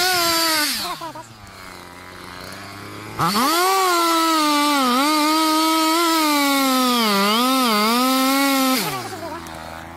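Two-stroke chainsaw revving briefly, dropping to idle, then running at full throttle while cutting into a large tree trunk for about five seconds, its pitch dipping a few times as the chain loads up in the wood, before it falls back to idle near the end.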